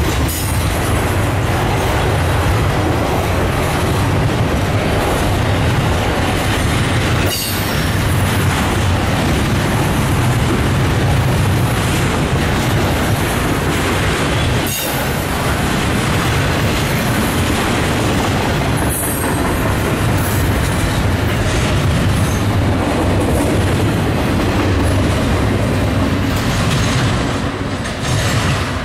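Norfolk Southern double-stack intermodal freight train rolling past at close range: a steady, loud rumble of freight car wheels on the rails, with a few sharp clicks.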